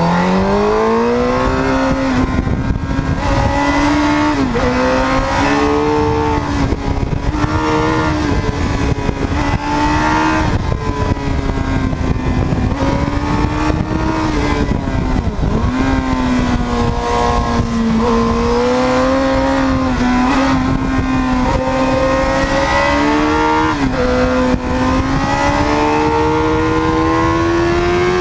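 Suzuki GSX-R 750 inline-four engine pulling hard on the move, its pitch rising and falling with the throttle, with a few quick drops in pitch. Wind noise runs underneath.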